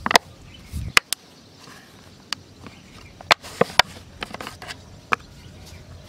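A large plastic jar being handled and its lid taken off: a string of sharp, irregular clicks and taps of plastic, the loudest about a second in and between three and four seconds in.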